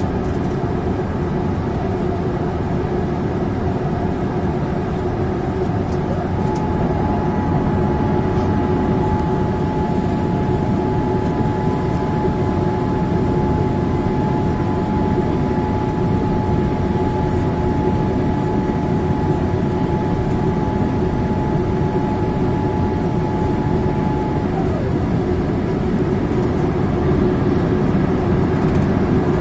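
Steady cabin noise inside a Boeing 787-8 Dreamliner in flight: engine and airflow noise with a low hum underneath. A steady mid-pitched whine joins about six seconds in, bending slightly as it starts, and stops with a brief downward slide about twenty-four seconds in.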